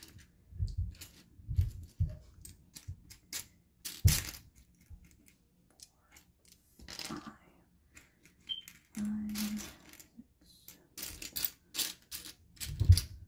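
Small plastic building-block pieces clicking and rattling against each other as a hand rummages through a loose pile of them, in irregular clusters of sharp clicks. Some low thuds are mixed in.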